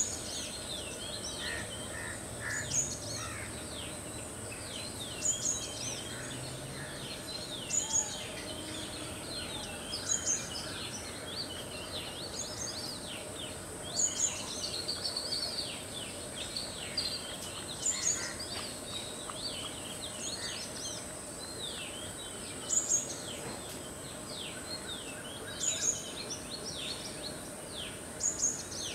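Background birds calling, with sharp, quickly falling high notes in clusters every two to three seconds, over a steady high-pitched hiss.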